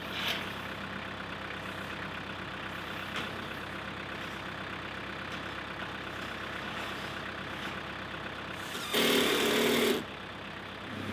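Steady machine-like running noise, with a louder burst about a second long near the end that has a droning tone in it.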